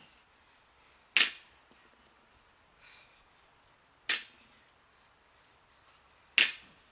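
An 85-lb barbell set down on the ground at the bottom of each deadlift rep: three sharp knocks about two to three seconds apart, each dying away quickly.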